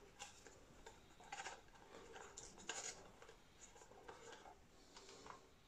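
Near silence, with faint scattered scrapes and small clicks of hands handling the plastic case of a radio-control transmitter.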